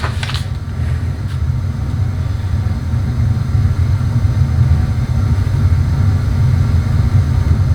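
A steady low mechanical rumble, with a couple of light clicks in the first second or so.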